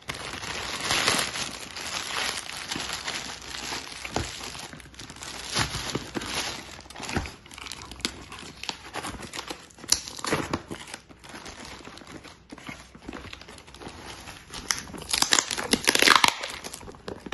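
Clear plastic bag crinkling as hands handle the parcel inside it, then the packing tape on a cardboard box being picked at and torn away, with a louder stretch of tearing near the end.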